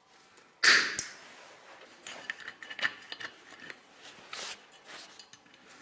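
Steel wire and small metal hardware being handled: a sharp clatter about half a second in, then a run of small clicks and rattles.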